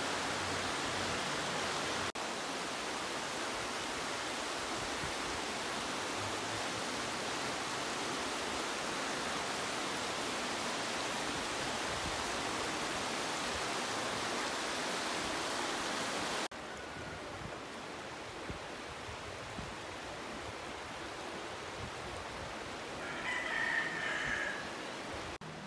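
The Orizaba River rushing fast through its stone channel, a steady hiss of flowing water that drops abruptly to a softer rush about two-thirds of the way in. A brief higher-pitched call rises over it near the end.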